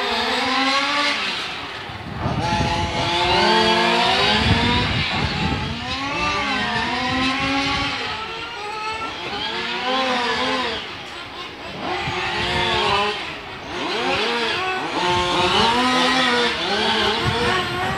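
Several racing cars lapping a twisty circuit. Their engine notes overlap, rising and falling in pitch as they accelerate out of corners and lift off into the next.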